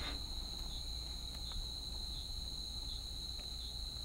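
Crickets trilling in a steady, continuous high-pitched chorus, with a few faint soft ticks over it.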